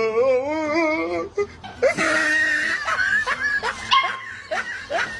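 An animal's voice: one long call wavering in pitch over the first second or so, then shorter calls and squeaks.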